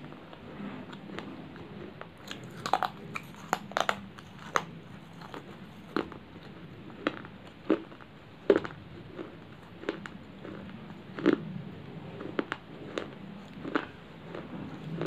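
A person biting and chewing a shard of baked terracotta clay: sharp, irregular crunches, a quick run of them about two to four seconds in, then single crunches every second or so.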